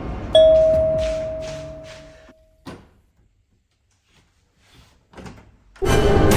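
The lower second note of a two-tone ding-dong doorbell chime, struck suddenly and fading out over about two seconds. A single click follows, and loud music cuts in near the end.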